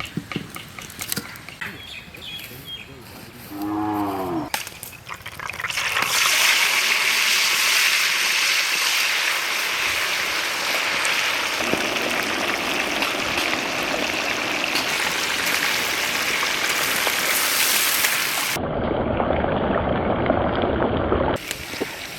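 A cow moos once, about four seconds in. A couple of seconds later a loud, steady sizzle of fish deep-frying in a big pan of hot coconut oil starts, and it goes on for most of the rest.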